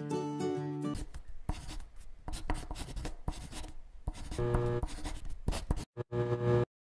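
A last second of plucked-string music, then a pen scratching and scribbling across paper for about three seconds as a handwritten logo is drawn, followed by two short held musical chords that cut off suddenly near the end.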